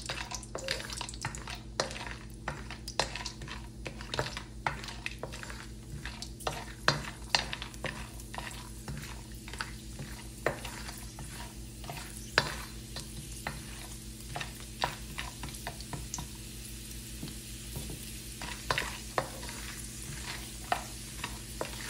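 Pieces of gond (edible gum) frying in hot ghee in a wok, sizzling with many small sharp pops and crackles as the gum starts to puff up, while a wooden spatula stirs and scrapes them around the pan. The popping thins out for a few seconds past the middle.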